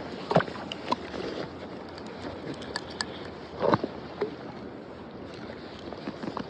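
Steady rush of flowing river water, broken by a few sharp knocks and clicks, the loudest about half a second in and again near the middle.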